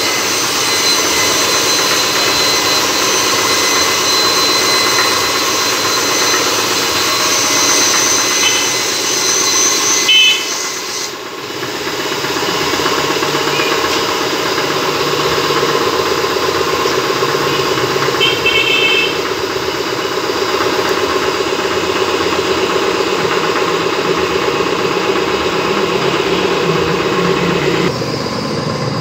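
A steady mechanical drone, like a motor or engine running, continuous and loud. Two brief high chirping tones come through it, about ten and eighteen seconds in.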